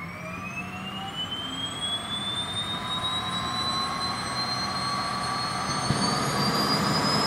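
Turbine whine and propeller drone of a twin-turboprop Beechcraft King Air's Pratt & Whitney PT6A engines as it taxis. The whine rises steadily in pitch and grows gradually louder over a steady low drone.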